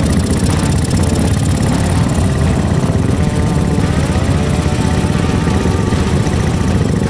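Many motorcycle engines running together as a large group of bikes and scooters rides slowly past at close range, a loud, dense, steady rumble.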